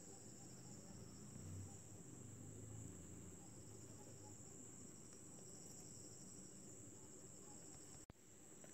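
Near silence: room tone with a faint, steady high-pitched whine.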